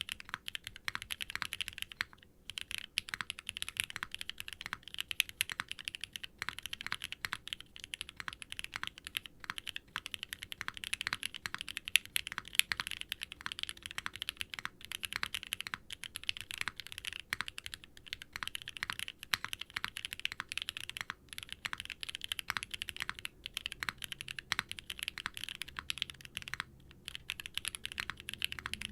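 Fast, continuous typing on a Qwertykeys Neo80 Cu mechanical keyboard with an aluminium plate, poron gaskets and no dampening foam, fitted with NovelKeys Classic Blue linear switches and GMK double-shot ABS keycaps. The keystrokes and bottom-outs come as a steady stream of clicks, with brief pauses about two seconds in and near the end.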